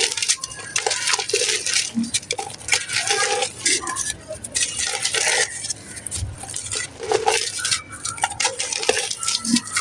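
Dry gritty mud or clay pot being crumbled: a dense, irregular run of crunching and crackling as hard fragments break and clink together.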